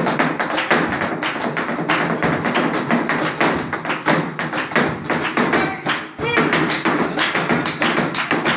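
Flamenco footwork (zapateado): rapid, dense heel and toe strikes of dance shoes on the floor, mixed with hand clapping (palmas). There is a brief break a little after six seconds in.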